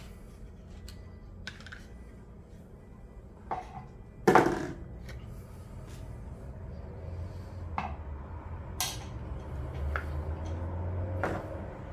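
Small hard parts and tools being handled on a work surface while a watch winder is taken apart: scattered clicks and light clatter, with one loud knock about four seconds in and another sharp click near nine seconds.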